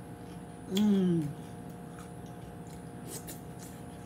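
A short hummed "mmm" of a person savouring food while eating, about a second in. A few faint mouth clicks of chewing follow near three seconds in, over a faint steady hum.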